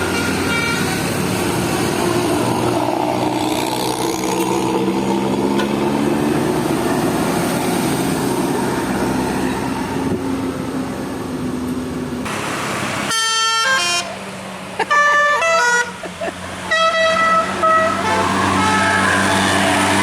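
A bus engine pulling, its pitch rising, then about twelve seconds in a Basuri telolet musical horn plays a quick melody of short stepped notes for several seconds before the engine sound carries on.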